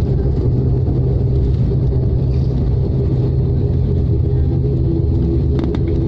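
Jet airliner heard from inside the cabin during the landing roll: a loud, steady, deep rumble of the engines and wheels on the runway.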